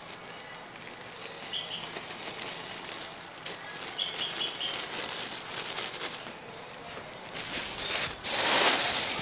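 Plastic bag rustling as flour is shaken out of it into a glass bowl. A louder second-long burst of rustling comes near the end. Small birds chirp faintly, once and then four times in quick succession.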